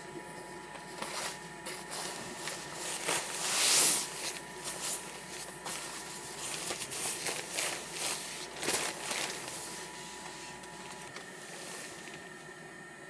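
Irregular rustling, scraping and clicking of objects being handled in a small enclosed space, loudest about four seconds in, over a faint steady high hum.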